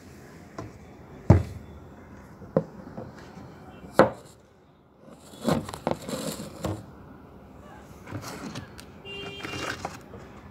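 Handling noise from a mobile phone being picked up, moved and set down on a wooden floor: a few sharp knocks and taps, the loudest about a second in and about four seconds in, with rustling and scraping in between.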